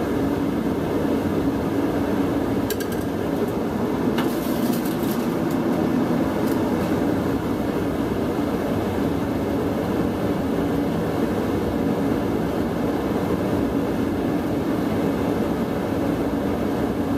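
Steady loud mechanical hum and rush, a machine running without change, with a couple of faint clicks about three and four seconds in.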